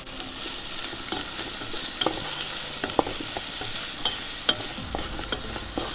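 Sliced sausage, chopped chicken and onion sizzling in oil in a pan while a wooden spatula stirs and scrapes through them, with sharp taps of the spatula against the pan now and then.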